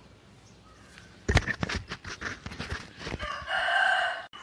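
A rooster crowing: a run of short, rough notes from about a second in, then a held final note that breaks off sharply near the end.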